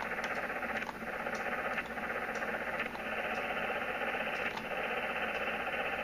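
Steady hiss of receiver noise from a Yaesu FT-857D's speaker in lower-sideband mode on 40 meters, cut off above about 3 kHz, with a few faint clicks at irregular intervals. The noise comes from the MFJ-212 Matchmaker and is heard while the magnetic loop's capacitor is tuned for the meter to drop.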